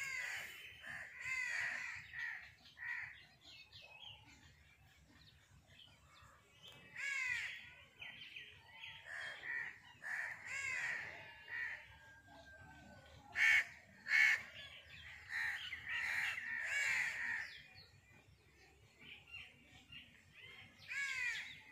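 Crows cawing over and over in clusters with short pauses between; two loud sharp sounds come close together about midway.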